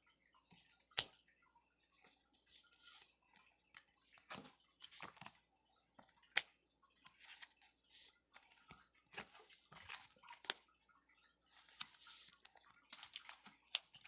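Pokémon trading cards being slid into plastic card sleeves and handled: a run of short, crinkly rustles and light taps with pauses between them.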